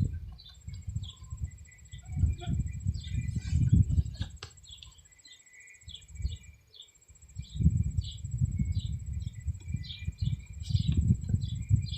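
Birds chirping over and over, with an insect trilling steadily and high in the background. Low rumbling noise comes and goes and is the loudest part, and there is a single sharp click about four seconds in.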